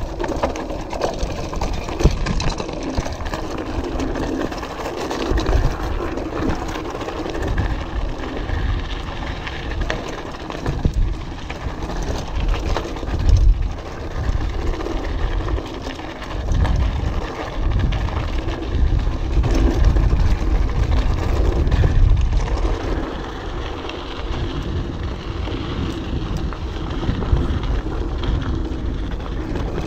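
Orbea Alma mountain bike ridden over a very rocky trail: tyres crunching and knocking over rocks and the bike rattling, with wind rumbling on the camera microphone.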